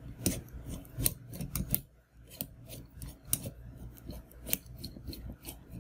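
Microphone body being screwed onto the threaded mount of its small tripod stand by hand: quick, uneven clicks and scraping from the turning threads, several a second.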